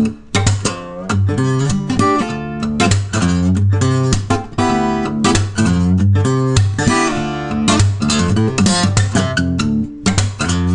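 Guitar music, plucked notes following one another quickly.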